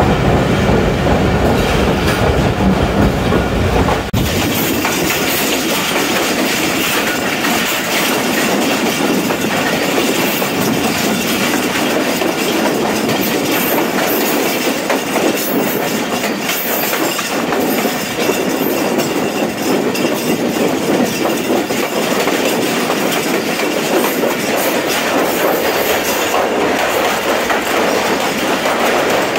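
Passenger train coaches running at speed, heard from an open coach doorway: a steady, loud clatter of wheels on rails. A deep low rumble in the opening seconds drops away suddenly about four seconds in.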